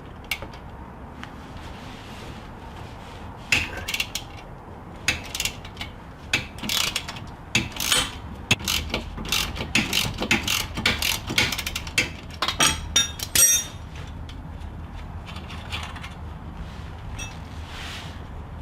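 Hand ratchet with a 15 mm socket clicking in quick runs of strokes as it unscrews the lower bolt of a sway bar link, the back of the bolt held with a wrench. The clicking starts a few seconds in and stops about 14 seconds in.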